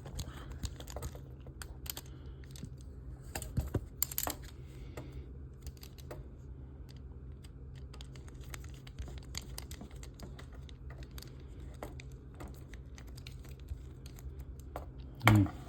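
Scattered light clicks and taps of a small screwdriver and metal screws against a model kit's frame as a screw fails to bite in its hole, over a steady low hum. A brief louder sound comes near the end.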